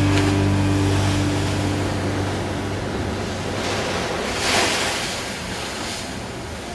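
Heavy ocean surf breaking against a concrete breakwater wall, with one louder crash of a wave throwing spray over the wall about four and a half seconds in.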